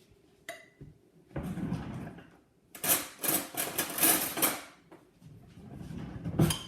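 Kitchen utensil handling while honey is added to a hot drink: a short scrape, then about two seconds of rapid clicking and clinking, like a spoon working against a jar or mug, and a rising rustle near the end.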